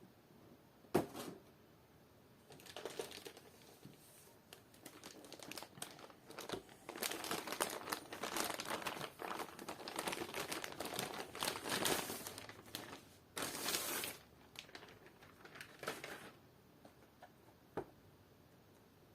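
Packaging crinkling and rustling as it is handled and unwrapped, in uneven spells, busiest in the middle, with a sharp click about a second in.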